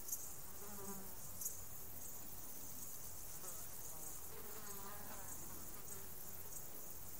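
A flying insect buzzing past, its hum wavering in pitch, briefly about a second in and again for a couple of seconds midway. Underneath is a steady high chirring of field insects.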